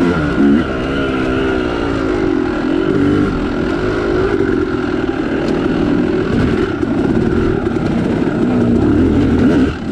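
Two-stroke Yamaha YZ dirt bike engine pulling in second gear up a rock section, revs rising and falling continuously as the throttle is worked.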